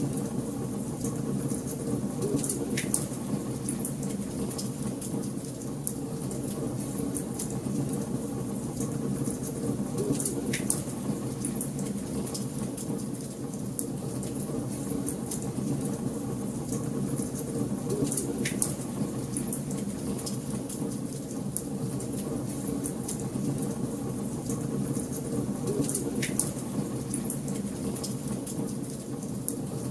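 Wood fire in a fireplace crackling steadily over a low, even rumble, with a sharper pop four times, roughly every eight seconds.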